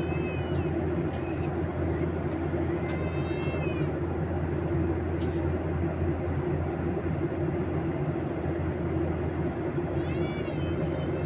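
Steady in-flight cabin drone of a Boeing 737-800, with the noise of its CFM56-7B engines and airflow and a low hum. Short high-pitched wavering cries sound over it at the start, around three seconds in, and again near the end.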